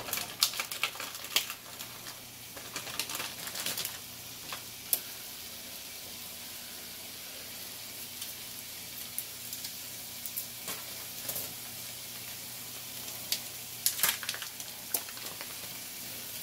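Raw ground bison sizzling in a hot non-stick frying pan. Over the steady sizzle come bursts of sharp crackles from the plastic meat packaging being handled, near the start and again about two thirds of the way in.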